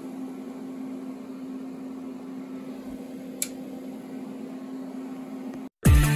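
Harbor Freight Central Machinery 3-in-1 mill-lathe running under power, with its electronic leadscrew driving the carriage: a steady machine hum with one tone, and a brief tick about three and a half seconds in. It cuts off suddenly near the end, and electronic music starts.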